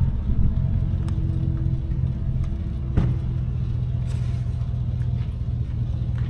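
ATV engine idling steadily, with a single sharp click about halfway through.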